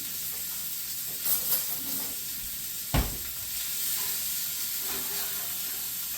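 Chicken pieces sizzling in oil in a very hot stainless steel pan, with the sizzle swelling louder twice a little over a second in. A single sharp knock sounds about three seconds in.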